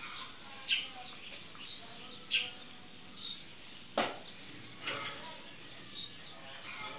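Knife scraping kernels off an ear of white corn into a plastic basin: a series of short scraping strokes, with a sharp knock about four seconds in. Birds chirp faintly in the background.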